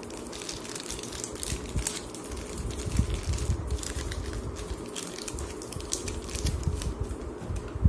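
Thin clear plastic bag crinkling and crackling in the hands as a camera battery is worked out of it, with many small irregular crackles.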